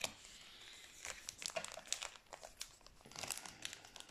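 Foil booster-pack wrapper crinkling as it is handled, a run of irregular crackles that is busiest about three seconds in.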